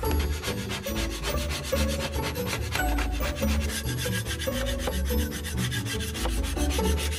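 Metal putty knife scraping softened varnish off a teak-veneer panel in repeated strokes.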